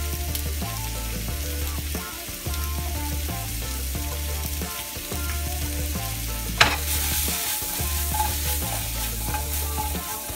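Mushrooms, onion and garlic sizzling in butter in a stainless steel skillet, a steady frying hiss. A single sharp knock sounds about two-thirds of the way through, and the sizzle is brighter after it.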